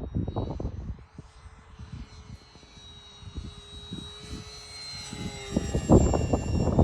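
Electric motor and propeller whine of a Durafly P-40 Warhawk RC foam plane in flight, a steady high-pitched tone that grows louder over the last few seconds as the plane comes closer. Wind buffets the microphone throughout, heaviest near the end.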